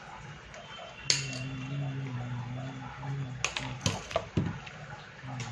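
Clicks and light clatter of a small circuit board and metal side cutters being handled and set down on a workbench: one sharp click about a second in, then a quick run of clicks near the middle. A low hum comes and goes behind them.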